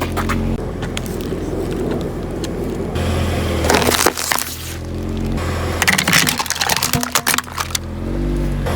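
A car running slowly while its tyres crush brittle objects: crackling crunches about four seconds in and again in a longer run from about six to seven seconds.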